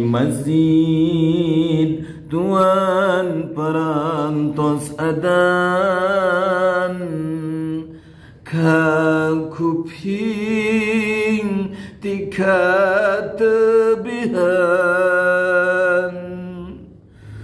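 A man singing an unaccompanied Sundanese pupujian (devotional chant) in a series of long phrases, drawing out wavering, ornamented held notes, with short breaths between phrases.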